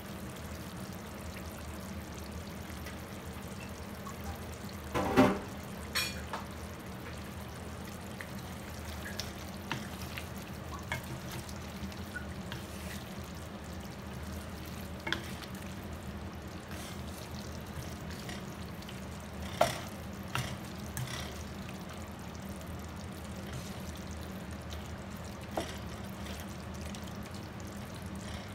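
Pork adobo sauce simmering and sizzling in a pan while a wooden spatula stirs the meat, with a few sharp knocks against the pan or lid, the loudest about five seconds in.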